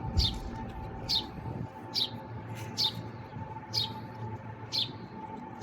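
A small bird chirping repeatedly: short, high, falling chirps about once a second. A faint steady hum runs underneath.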